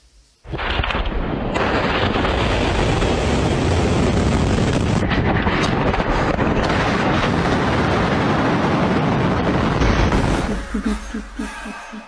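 RS-28 Sarmat intercontinental ballistic missile launching from its silo: a sudden, loud rocket-motor roar that starts about half a second in, holds steady, then fades near the end.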